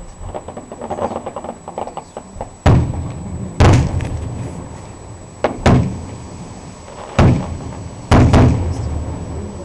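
Fireworks: a burst of rapid crackling, then about six loud aerial shell bursts, each a bang with a rumbling echo.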